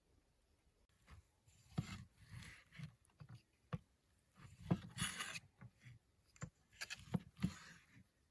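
Irregular knocks, scrapes and rustling of things being handled up close, the loudest clusters about five seconds in and again near the end.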